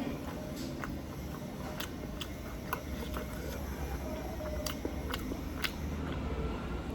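A person chewing and biting into a chicken leg piece from chicken biryani, with a scattering of short wet clicks and smacks at irregular intervals.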